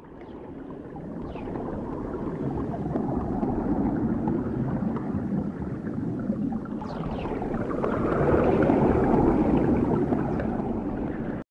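Logo-animation sound effect: a watery, rumbling swell that builds over several seconds, with faint falling swoops about a second in and again about seven seconds in, then cuts off suddenly.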